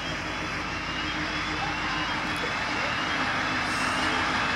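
V/Line Sprinter diesel railcar running as it rolls slowly into the platform, with a steady low engine hum and a rushing noise that grow gradually louder as it approaches.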